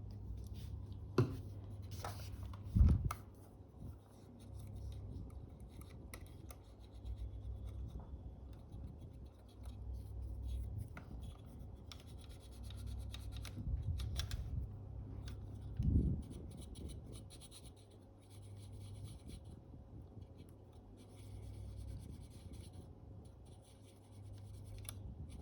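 Close, small handwork on a camera: soft rubbing and scratching, as of a stick scrubbing glue off the shutter flex cable, with a few sharp knocks of tools or parts, the loudest about three seconds in and again about sixteen seconds in. A steady low hum runs underneath.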